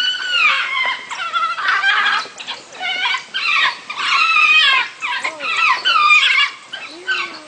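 African wild dogs crying: a rapid string of loud, high-pitched whining calls, many falling in pitch, as several dogs squabble over one chew toy.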